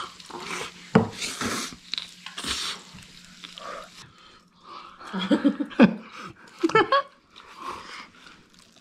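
Noodles being slurped and chewed from a bowl with chopsticks, in noisy sucking bursts during the first few seconds. About halfway through come several short, loud voiced sounds.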